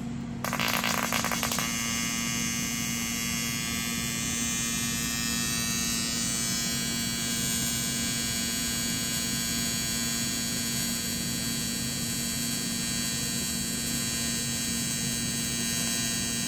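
AC TIG welding arc on 1/8 inch 6061 aluminum plate, run by foot pedal from a Titanium TIG 200 welder with no filler rod. The arc strikes about half a second in with a second of crackling, then settles into a steady electric buzz, its tone shifting for a few seconds as the pedal adds heat before holding steady.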